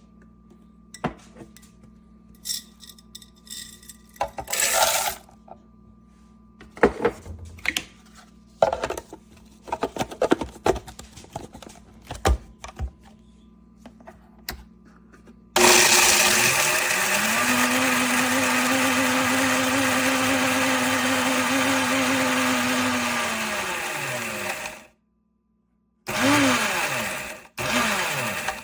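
Countertop blender: after some scattered clicks and knocks of handling, the motor spins up, runs steadily and loudly for about eight seconds, then winds down. Two short pulses follow near the end, each one revving up and dropping off.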